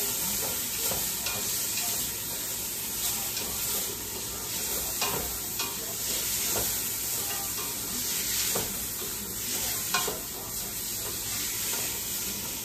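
Sliced onions, tomatoes and peppers sizzling in hot oil in a stainless steel pot while being stirred with a spatula, which scrapes and knocks against the pot now and then.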